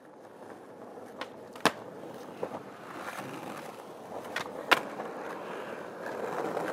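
Skateboard wheels rolling on pavement, slowly growing louder, with a few sharp clacks of the board, the loudest about two seconds in and again near five seconds in.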